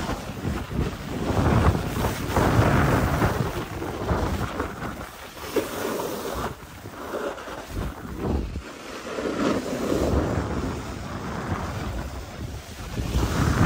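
Wind buffeting the microphone of a skier's camera during a downhill run, mixed with skis hissing and scraping over packed snow. The noise swells and fades unevenly throughout.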